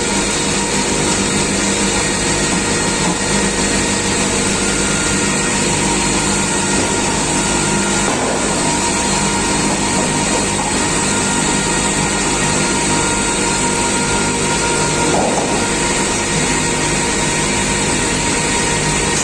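Four-shaft multi-blade circular-saw log sawing machine running, a steady loud mechanical noise with several held tones.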